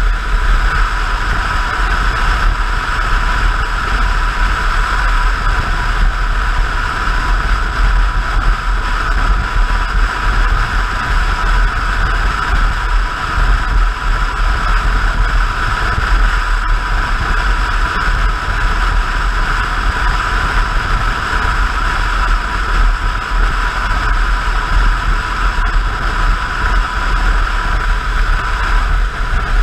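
Motorcycle cruising at steady highway speed: constant wind rush over the camera's microphone mixed with the engine's even drone, with no change in speed or gear.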